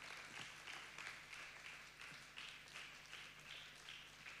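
Faint applause from a congregation: many hands clapping at once, easing off near the end.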